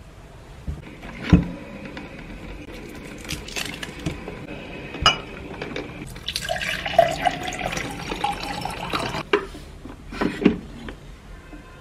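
Kitchen sounds: scattered clinks and knocks of glassware and dishes, then liquid poured into a glass for about three seconds starting around six seconds in, its pitch rising slightly as the glass fills, followed by a few more knocks.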